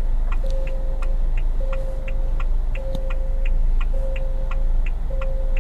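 ORA Good Cat's parking-assist warning beeps, sounding steadily during automatic reverse parking: a long, even beep about once a second, repeating at a fixed pace, over a quick ticking of about three ticks a second.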